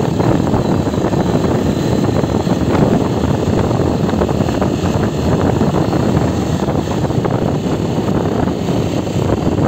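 Honda CG Titan 125's single-cylinder engine running as the motorcycle rides along, mixed with wind rushing over the handlebar-mounted phone's microphone. A steady, dense rumble throughout.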